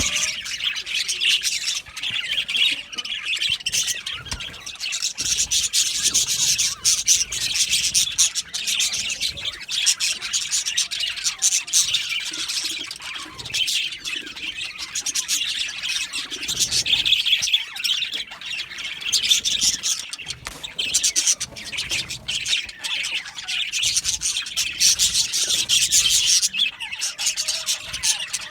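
A colony of budgerigars chattering and chirping all at once, a dense, continuous warble of many birds with sharp squawks mixed in.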